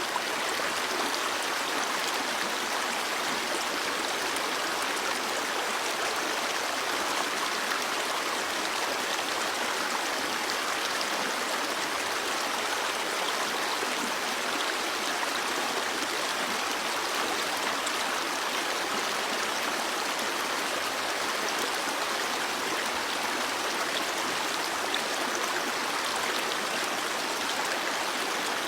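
Stream water flowing, a steady, even rush of running water.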